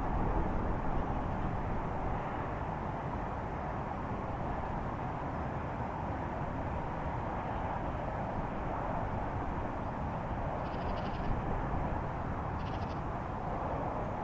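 Steady low outdoor rumble, the kind of sky hum uploaded as a 'strange sound from the sky'. Near the end, two short harsh bird calls, about a second and a half apart, sound over it.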